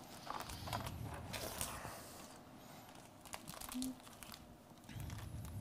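Faint crinkling, rustling and scattered light clicks of a fish being handled and cut on a board.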